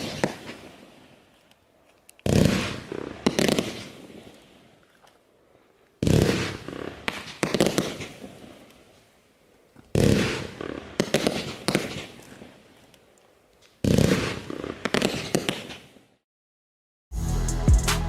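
Consumer fireworks going off: four times, about four seconds apart, a sharp bang followed by a run of crackling reports that fades out. Music starts about a second before the end.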